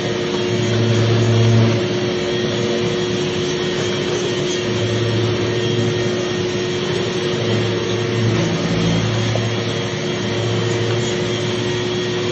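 A machine's motor running steadily, with a constant whine and a low hum that swells and eases every few seconds.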